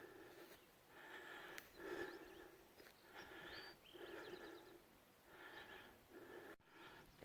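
Faint, rhythmic heavy breathing of a hiker on foot, about one breath a second, each breath with a slightly hoarse, pitched edge.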